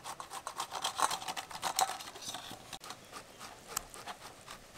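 Peeled ripe mango being rubbed on a hand grater: quick, even rasping strokes, about five a second, as the flesh is grated into pulp. The strokes grow softer after about two seconds.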